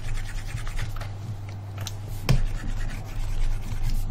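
Scratchy rubbing of a pointing device dragged across its surface as sculpting strokes are drawn by hand, over a steady low electrical hum, with a sharp click a little past halfway.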